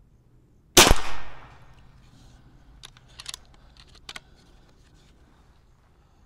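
Single shot from a Niksan Tacto-S .22-calibre PCP air rifle: a sharp crack with a short decaying tail. A few much lighter clicks follow two to three seconds later.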